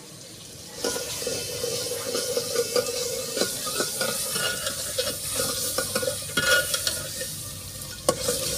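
Tomato-onion masala sizzling as it fries in an aluminium pot, stirred with a metal ladle that clicks and scrapes against the pot's sides. The sizzling starts about a second in and keeps on steadily; the masala is being fried down before the dal goes in.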